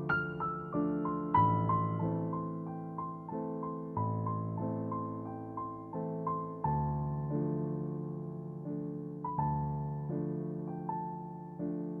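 Calm background piano music: a melody of single struck notes that fade away, over lower notes that change every second or so.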